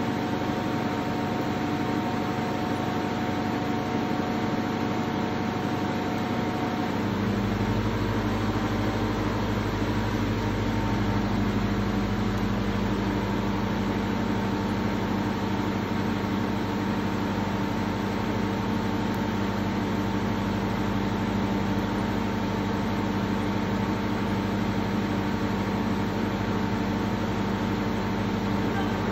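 Steady mechanical hum with several held tones over a hiss, joined by a deeper low rumble about seven seconds in, like an engine or machine running.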